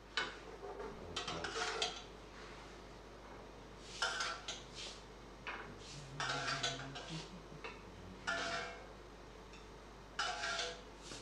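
Metal spoon clinking and scraping against a small copper pan and porcelain plates as sautéed grapes are spooned out, a handful of separate clinks spread through, some with a short ring.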